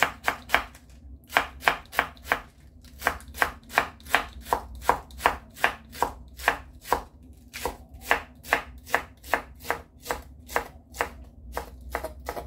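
A chef's knife chopping lettuce on a wooden cutting board, with quick even strokes at about four a second. The strokes break off briefly every few seconds.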